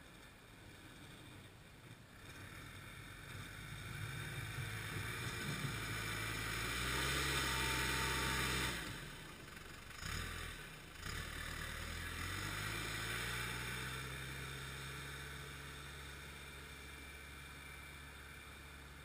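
Diesel engine of a snow-plowing loader working, growing louder to a peak about eight seconds in, dropping off sharply, then revving back up and slowly fading away.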